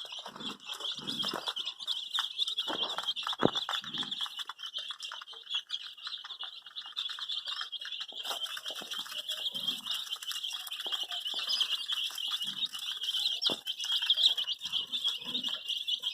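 A crowd of baby chicks peeping constantly, a dense chorus of high, rapid chirps. A few soft low sounds and a couple of sharp taps sound under it.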